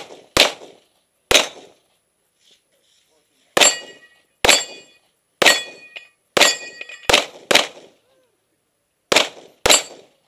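Open-division competition pistol firing about ten shots, in singles and quick pairs. Several shots in the middle of the string are followed by the short ring of steel targets being hit.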